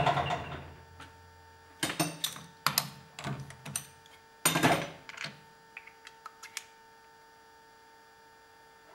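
Metal lathe winding down to a stop after being switched off, followed by a run of sharp metal clicks and clunks, loudest about two and four and a half seconds in, as the turned acrylic part is freed from the three-jaw chuck.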